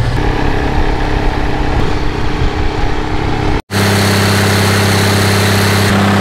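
A low rumble, then after a cut the turbocharged diesel engine of an irrigation well's power unit running at a steady speed with a deep, even hum.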